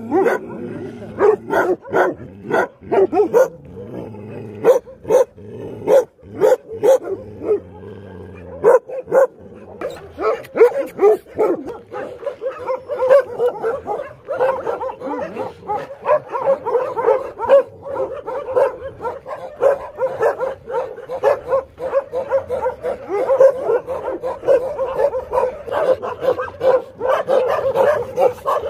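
A pack of large dogs barking behind a chain-link fence. For the first nine seconds or so come loud separate barks, then many dogs bark over one another in a dense, continuous chorus.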